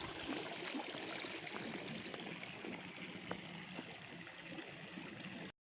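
Water trickling and lapping gently at the lakeshore, a steady soft wash with a few faint clicks; it cuts off suddenly near the end.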